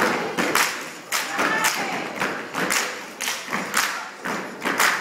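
Step team stepping: sharp stomps and claps in a syncopated rhythm, about two or three hits a second.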